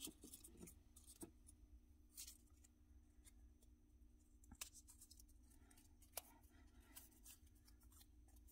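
Near silence: faint paper rustling and a few light clicks as a small folded slip of paper is handled at a plastic clipboard, over a low steady hum.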